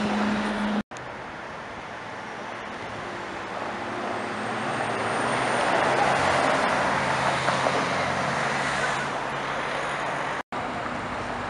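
Briefly a Porsche 911 GT3 engine droning, cut off abruptly under a second in. Then a Ferrari F12berlinetta's V12 running at low revs as the car rolls slowly past, growing louder as it comes alongside about six seconds in and fading as it pulls away.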